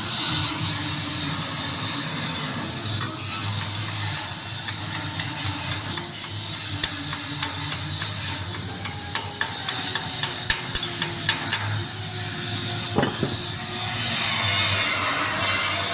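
Flux-cored arc welding: a steady sizzling, crackling hiss, with a run of sharp ticks and pops through the middle.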